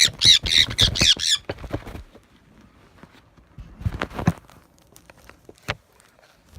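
Sun conure screeching in a rapid string of harsh, high-pitched calls while it is held for wing clipping, loudest in the first second and a half, with a shorter burst about four seconds in. A couple of sharp clicks come near the end.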